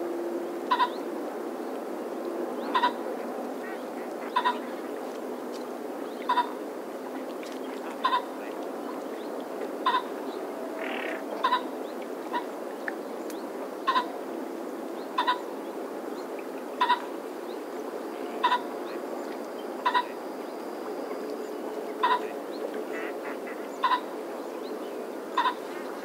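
Common pheasant calling: a short call repeated at an even pace, about every one and a half to two seconds, some fifteen times, over steady background noise.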